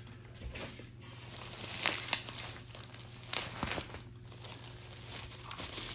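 Bubble wrap and plastic packaging crinkling and tearing as it is pulled open by hand, in irregular rustles with a few sharper rips.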